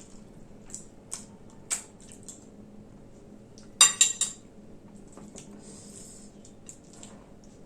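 Metal dishes and utensils clinking, with scattered light clicks and one loud ringing metallic clatter about four seconds in.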